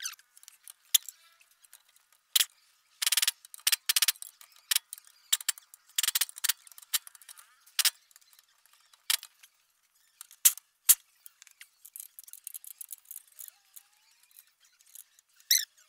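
Hand tools and metal suspension parts clicking and clinking at irregular intervals, with a few quick runs of clicks, during the fitting of a car's lower control arm. A short high squeak comes near the end.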